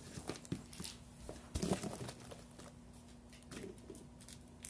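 Cardboard box of an artificial Christmas tree being handled on a carpeted floor: scattered rustles and light knocks, with a louder bump about a second and a half in, over a faint steady hum.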